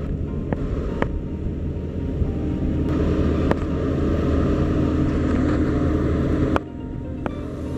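Speedboat engine running steadily at speed while towing a parasail, with a few sharp clicks; the sound drops suddenly about six and a half seconds in.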